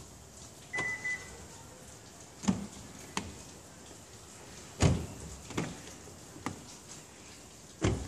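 The car alarm's piezo buzzer gives two short steady high beeps as its welcome sound when the smart key comes near. A string of clicks and thumps follows from the driver's door being opened and shut.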